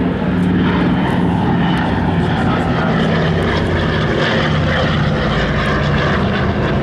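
Steady, loud drone of a Douglas C-47 Skytrain's twin Pratt & Whitney R-1830 radial engines and propellers in flight, heard from inside the cabin.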